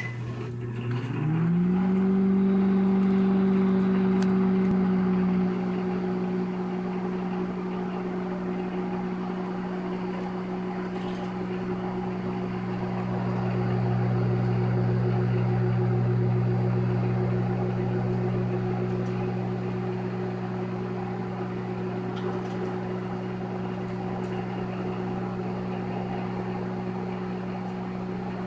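Microwave oven starting up and running: its hum rises in pitch over the first couple of seconds as the turntable motor and fan come up to speed, then holds as a steady drone, dropping slightly in level about five seconds in and swelling a little near the middle.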